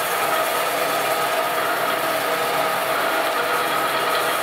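Enamelware vessel pressed against a spinning grinding stone: a steady grinding hiss with a constant whine.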